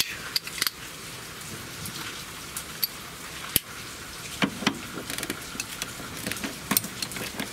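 Irregular light metallic clicks of a wrench being handled and fitted onto a suspension bolt, over a steady background hiss.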